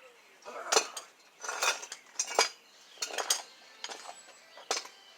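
Irregular metallic clinks and scrapes of a socket and hand tools working on a mower blade's mounting bolt, about eight to ten sharp strikes.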